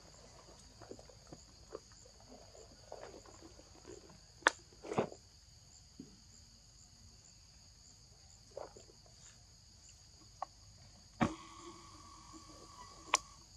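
Steady high-pitched chorus of forest insects with scattered faint rustles and a few sharp clicks or snaps, the loudest about four and a half, five and eleven seconds in.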